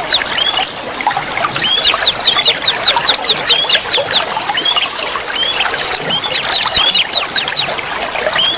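Songbirds chirping in quick runs of sharp, downward-sweeping whistled notes, about five a second in bursts, over the steady sound of running water.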